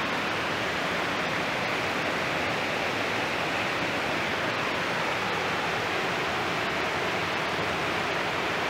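Steady, even rushing of flowing water, with no change throughout.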